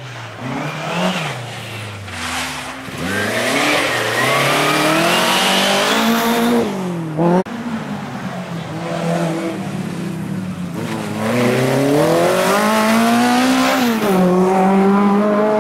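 Rally car engine revving hard, its pitch climbing and then dropping sharply several times as the driver lifts and changes gear, once with a sudden break about halfway through. Near the end it falls away and climbs again as the car slows for a corner and accelerates out.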